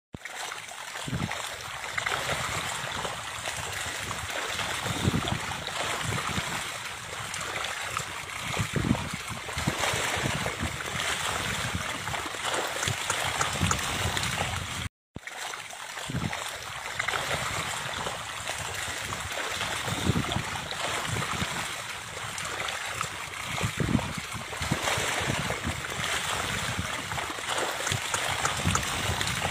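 Steady splashing and trickling of shallow water, with occasional low thuds. The sound cuts out briefly about halfway through, then carries on.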